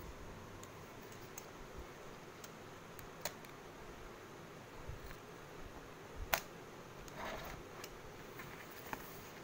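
Hands handling a cardboard box: scattered light taps and clicks on the cardboard, one sharper click about six seconds in and a brief scrape just after, over a steady low hiss.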